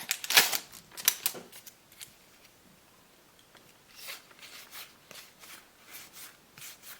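Trading cards being flicked through by hand: quick papery swishes and snaps, busiest in the first two seconds, then softer ones after a short pause.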